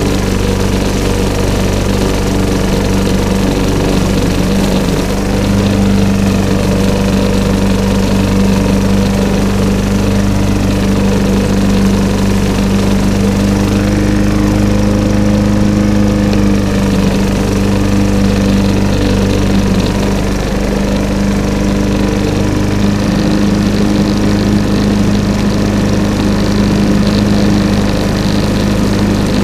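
Walk-behind lawn mower running steadily as it is pushed across grass and fallen leaves, a loud even hum with a low drone.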